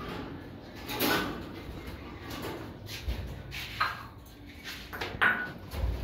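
A few short clinks and rattles from wire bird cages and their feeding dishes being handled as the dishes are taken out.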